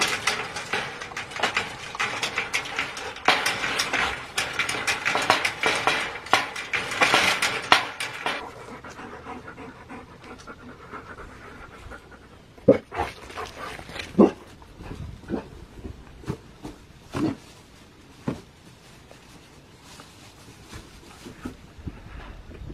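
Husky-type dogs panting hard, a fast breathy rhythm for about the first eight seconds. After that it drops much quieter, with a few scattered thumps.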